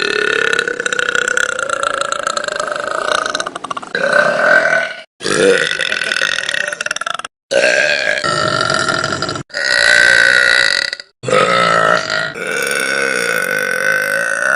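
A string of long, drawn-out burps from girls, five or six in quick succession, each held for one to four seconds and broken off by a brief abrupt silence.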